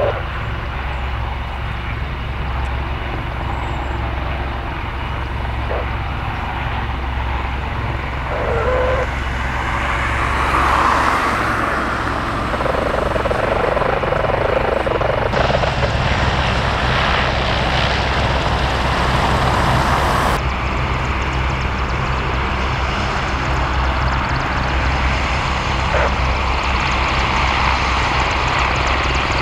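Helicopter running nearby: a steady low beat from the rotor under engine and blade noise that swells and grows a little louder about ten seconds in.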